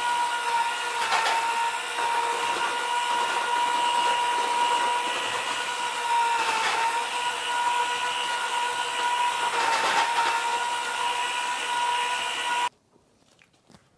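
Handheld electric paddle mixer with a spiral whisk, running steadily in a bucket while it mixes hydraulic lime with water. It gives a steady whine that dips slightly three times as the paddle takes load, then stops suddenly near the end.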